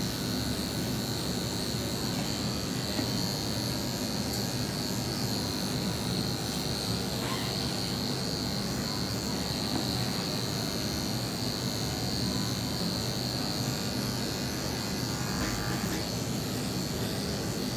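Corded electric dog-grooming clipper running steadily with a high whine as it shaves through a dog's long, matted coat.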